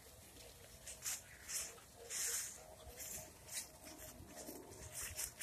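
Dry fallen leaves rustling and crunching in irregular bursts as an RC rock crawler drives over the leaf-covered ground, with someone following on foot through the leaves; the loudest crunch comes about two seconds in.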